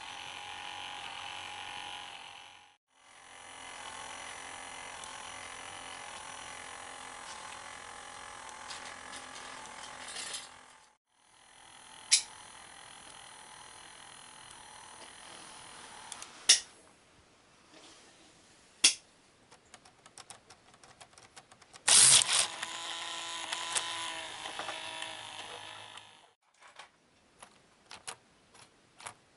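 K'nex plastic coaster mechanism clicking and rattling over a steady electric hum that cuts out abruptly twice, with a loud clatter about 22 seconds in and a run of quick, uneven ticks near the end.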